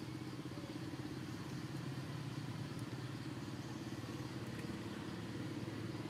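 Steady low drone of an engine running at a constant speed.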